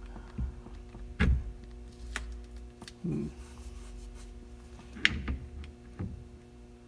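Steering wheel being handled and shifted on an F-150's steering column shaft while it is lined up: a few knocks and clunks, the loudest about a second in and again about five seconds in.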